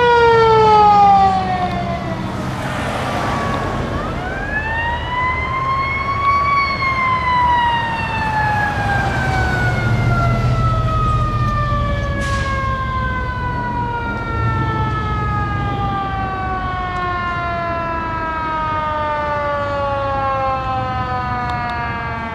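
Fire truck siren winding down, then winding up again about four seconds in and slowly coasting down over the rest, the long rise and fall of a mechanical siren. Heavy engine rumble from fire apparatus driving past runs beneath it, with a short hiss about three seconds in.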